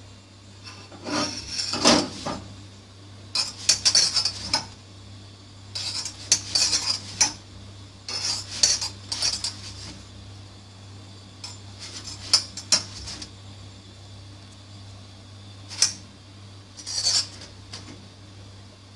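Scraping and clinking of a utensil against an iron tawa as a roti is turned and pressed while it puffs up. The sound comes in about seven short clusters of scrapes and clicks, a few seconds apart.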